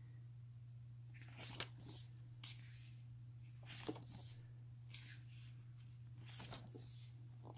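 Pages of a hardcover art book being turned and a hand brushing across the glossy paper: several brief, soft rustles over a steady low hum.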